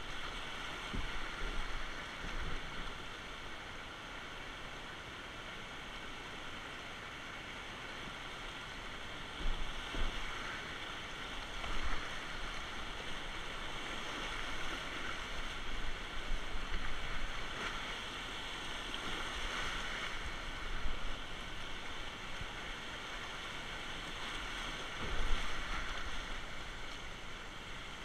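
Whitewater rapids rushing steadily around a kayak running through them, with a few louder splashes from the water and paddle against the hull.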